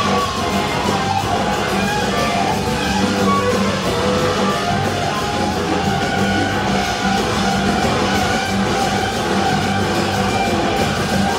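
Live rock band playing at full level: a SG-style electric guitar plays a lead line over bass and a drum kit. The mix is heard from the audience.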